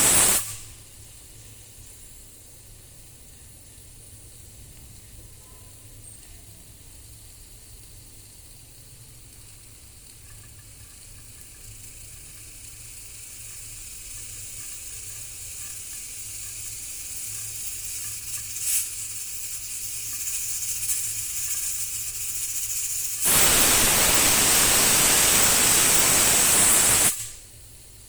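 Pressure cooker venting steam through its whistle weight in loud hissing bursts. One burst cuts off right at the start, then a fainter hiss slowly builds, with a single click about two-thirds of the way in. A second loud burst begins suddenly about four seconds before the end and stops abruptly.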